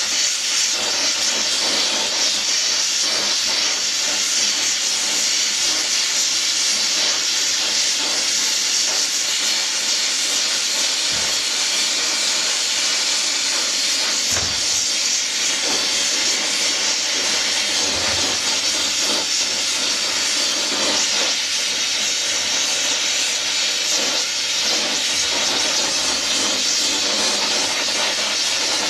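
Gas torch flame hissing steadily while it heats a tube joint for silver soldering, with a few soft low knocks.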